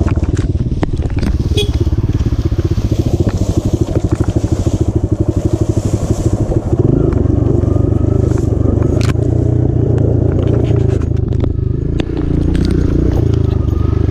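Dirt bike engine running at low revs with an uneven, pulsing chug, then picking up to a fuller, steadier note about halfway through as the throttle opens, dipping briefly near the end. Scattered clicks and rattles from the bike over the rough trail.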